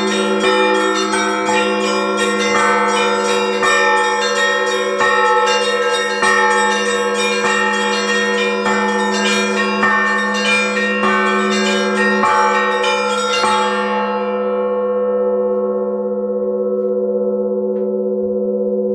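Church bells rung in a peal: several bells of different pitch struck in a steady rhythm over a deep, sustained bell tone. The striking stops about two-thirds of the way through, and the bells ring on, the higher ones dying away while the deep tone lingers.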